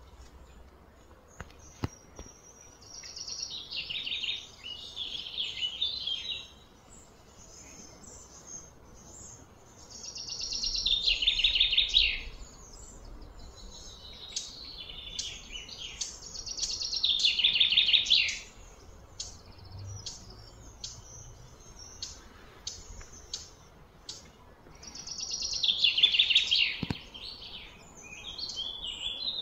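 High-pitched pulsing calls from wild creatures, repeated about every six to eight seconds; each call swells over two to three seconds and stops sharply, with fainter short chirps in between.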